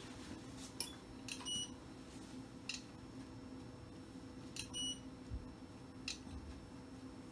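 Two short, high electronic beeps from medical equipment, about three seconds apart, over a steady electrical hum, with a few light clicks in between.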